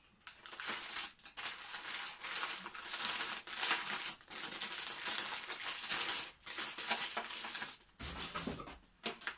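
Plastic packaging crinkling and rustling as it is handled and pulled off, in several stretches broken by short pauses, with a low handling bump near the end.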